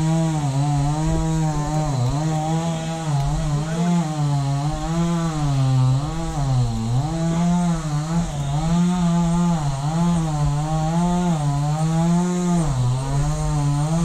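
Stihl MS 250 two-stroke chainsaw running at high revs, its engine pitch dipping and recovering every second or so.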